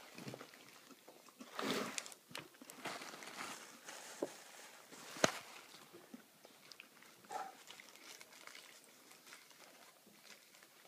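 A toddler pulling apart a burrito by hand on a plastic plate: quiet squishing and tearing of tortilla and filling, with mouth sounds of eating and scattered small clicks. A louder rustle comes about two seconds in and a sharp tap about five seconds in.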